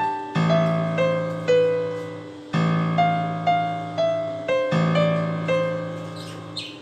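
Background music: a piano or electric piano playing a slow melody over repeated low chords, notes struck about twice a second.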